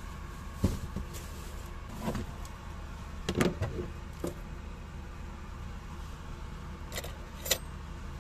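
Several scattered knocks and clatters of small items being handled and set down, the loudest a quick double knock about three and a half seconds in, over a steady low hum.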